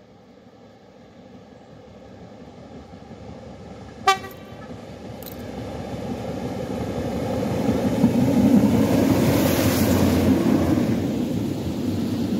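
A pair of diesel locomotives running light approaches and passes close underneath, their engines growing steadily louder and loudest about two thirds of the way through. There is a short, sharp horn toot about four seconds in.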